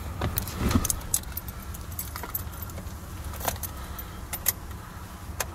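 Keys jangling on a key ring at the truck's steering-column ignition, with irregular small metallic clicks and jingles as the key is handled.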